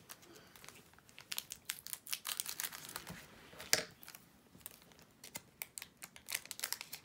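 Foil booster-pack wrappers crinkling and rustling as they are handled, in scattered sharp crackles, the loudest about three and a half seconds in.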